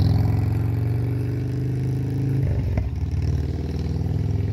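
A vehicle engine idling steadily close by, with a short click a little under three seconds in.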